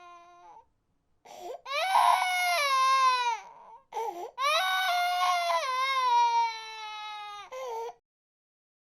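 Baby crying: the tail of one cry, then two long cries of two to three seconds each whose pitch falls, separated by short catching breaths, and a brief last cry; the crying stops about eight seconds in.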